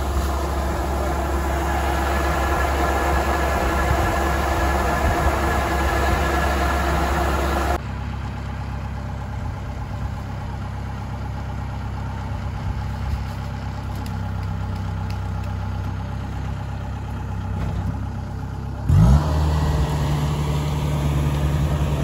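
An engine running steadily; about eight seconds in the sound changes abruptly to the diesel engine of a Kubota DC-70 combine harvester idling. Near the end the combine's engine revs up quickly and holds at a higher speed.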